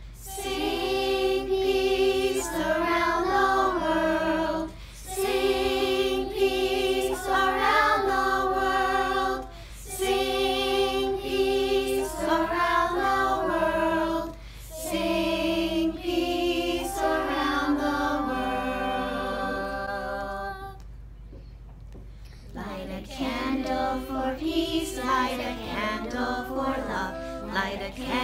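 Children's choir singing together with a woman's voice, in sustained phrases a few seconds long with short breaths between them; the singing stops for a moment about three-quarters of the way through, then starts again.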